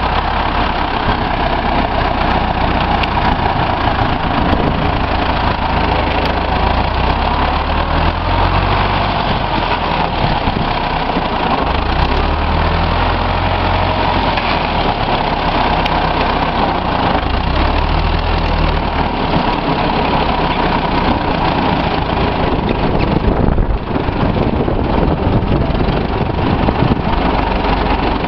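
Freshly overhauled Deutz 6005A tractor's air-cooled four-cylinder diesel running steadily under way, with a brief dip in sound a few seconds before the end.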